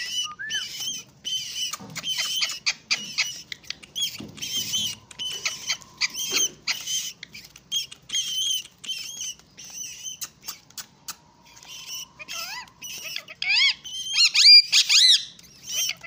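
Indian ringneck parakeet (rose-ringed parakeet) chirping: a rapid, steady run of short, high chirps with a few clicks, breaking into louder swooping calls that rise and fall near the end.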